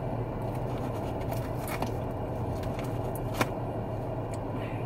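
A few sharp clicks and crunches of eating fried chicken, about four over a few seconds, over a steady low hum in a car's cabin.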